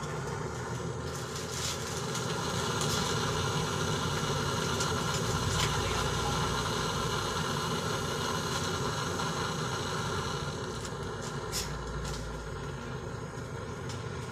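A small motor running steadily with an even hum, with a few light clicks near the end.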